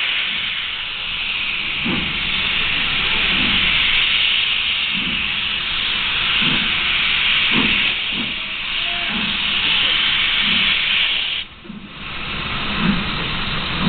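Steam locomotive starting a train, steam hissing loudly and steadily from its front end as it moves off slowly. The hiss breaks off for a moment about three-quarters of the way through, then resumes.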